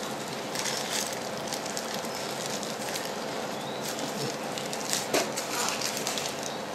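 Gloved hands crumbling and loosening lumps of fermented beetle substrate in a plastic tray: irregular crackling and rustling of the plastic gloves and the crumbly mat over a steady hiss, with a sharper crackle about five seconds in.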